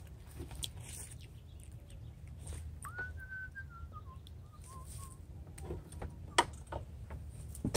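A person whistling a few notes for about two seconds, starting about three seconds in with a quick rise, then wavering downward. Around it come light clicks and knocks of a plastic deer feeder being handled against its tree mount, with one sharp knock near the end the loudest sound, over a steady low rumble.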